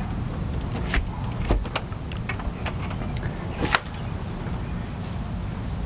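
A quick run of sharp clicks and knocks over a steady low rumble; the loudest knock comes near the end of the run.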